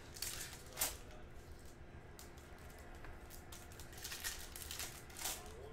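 Foil wrapper of a Topps Chrome baseball card pack crinkling as it is torn open and the cards are slid out: a scatter of short soft crinkles and clicks.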